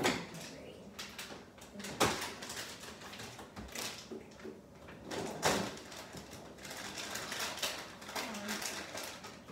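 Refrigerator door pulled open, then sharp knocks and clinks with rustling as jars and bottles are moved about on the fridge shelves.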